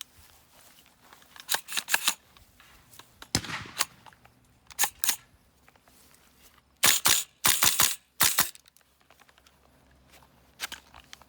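Rifle action clacking: several clusters of sharp metallic snaps and clicks, the loudest run of them a little past the middle.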